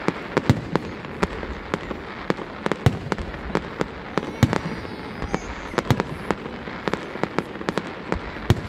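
Fireworks display: aerial shells bursting in a fast, irregular run of sharp bangs, several a second, over a steady background noise.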